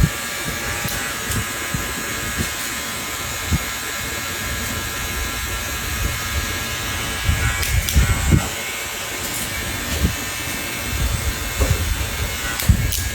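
Electric hair clippers buzzing steadily, with a few low bumps from handling about two-thirds of the way through and near the end.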